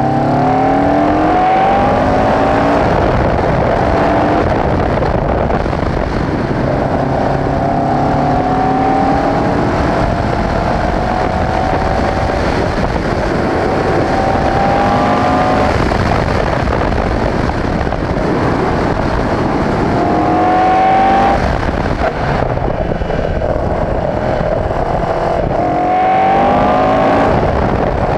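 Onboard sound of a race car's Alfa Romeo 1490 flat-four boxer engine at racing speed, its pitch climbing again and again as it accelerates and dropping back between pulls, over a rush of air noise in the open cockpit.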